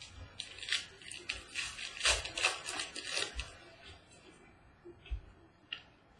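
Stiff, glossy Prizm trading cards being thumbed through and slid across one another in the hands, a quick run of clicks and rustles that dies down about four seconds in.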